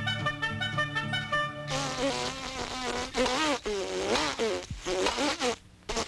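Music with steady held notes, then, about a second and a half in, a cartoon fly's buzzing takes over. The buzz wavers up and down in pitch and comes and goes, dropping away near the end.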